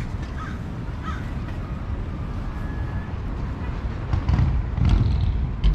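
Outdoor pier ambience: a steady low rumble of surf and wind on the microphone, heavier from about four seconds in, with a few short bird cries in the first second or so.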